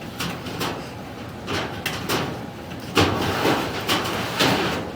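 Scraping and rubbing in sheet-metal ductwork as a duct inspection camera and its cable are worked along inside, in several short surges.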